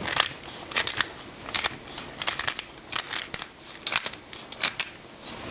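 Pepper grinder being twisted over the pot, its mill giving runs of short, crisp crunching clicks in irregular clusters.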